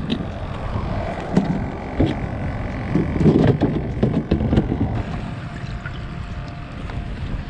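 Wind buffeting the microphone in a steady low rumble, with scattered plastic knocks and clatters, busiest in the first half, as a cooler lid and a bait bucket lid are opened and handled.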